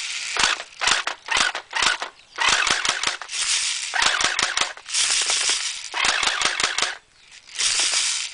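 Well P90 electric airsoft gun firing: sharp single shots alternating with short full-auto bursts of about half a second to a second each.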